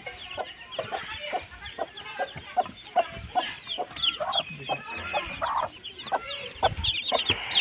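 Newly hatched chicks peeping continuously in high, downward-sliding chirps, over a mother hen's steady run of short, low clucks, a few each second.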